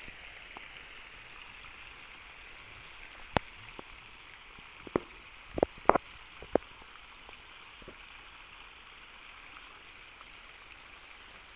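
Steady high outdoor hiss of a crop field, with about six short sharp clicks or snaps between about three and seven seconds in.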